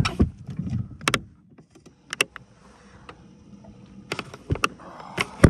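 Scattered knocks and clicks of gear being handled in a small fishing boat, with a low rumble in the first second and a cluster of louder knocks near the end.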